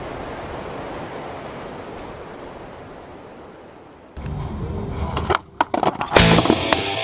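A steady noisy hiss fades down, then a fast skate-punk rock track with distorted guitars and drums cuts in about four seconds in. A few sharp stop-start hits come before the full band kicks in near the end.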